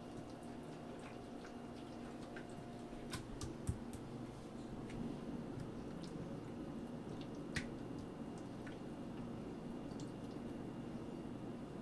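A hand squishing raw chicken pieces through a thick yogurt-and-spice tandoori marinade in a glass dish: faint wet squelches and a few small clicks over a steady low hum.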